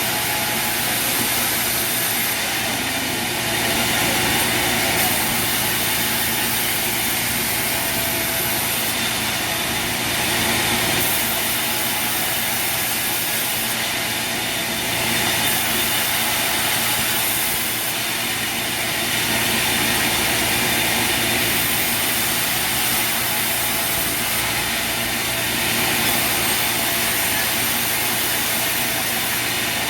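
Sawmill machinery running steadily, swelling and easing every five or six seconds.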